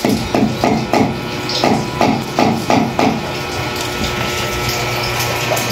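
Claw hammer tapping the nail of a cable clip to fix a cable to the wall, about three light strikes a second for the first three seconds, then stopping.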